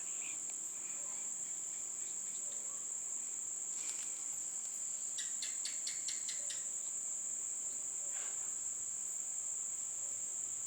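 Crickets trilling in one continuous high-pitched tone, with a quick run of about seven clicks a little past the middle.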